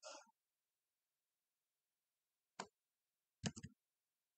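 Near silence broken by a few faint clicks: a single click about two and a half seconds in, then a quick cluster of several clicks about a second later.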